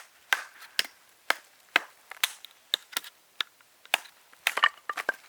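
Batoning: a wooden baton knocking repeatedly on the spine of a Bark River Puukko knife, driving its blade down through a piece of wood. About a dozen sharp knocks, roughly two a second, coming faster near the end.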